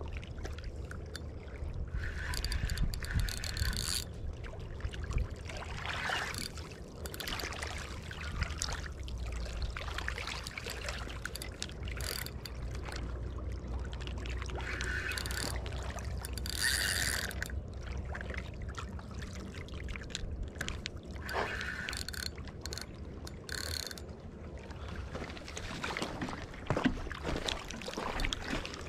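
Spinning fishing reel being cranked in several short bursts, a whirring with a steady pitch each time, over a low steady rumble and water lapping on a rocky shore.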